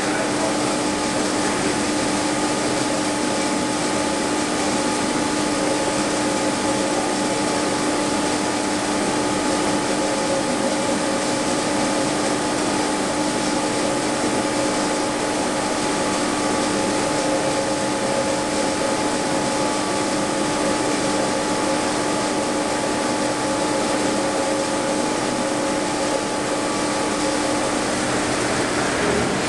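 Small water turbine and its belt-driven electric generator running steadily: a constant rushing hum with several steady whining tones on top.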